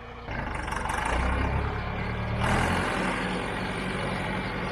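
John Deere 410 backhoe engine running. It pulls harder for a couple of seconds, with a brief hiss partway through, then settles back to a steady run.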